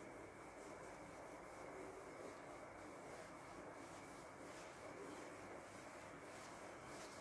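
Marker writing being wiped off a whiteboard by hand: faint, repeated rubbing strokes over a steady hiss.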